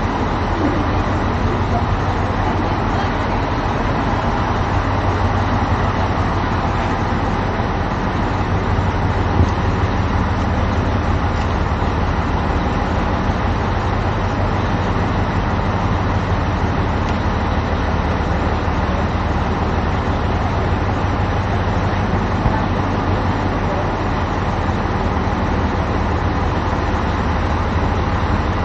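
Diesel engine of a standing KiRo 185 series railcar idling, a steady low hum that does not change.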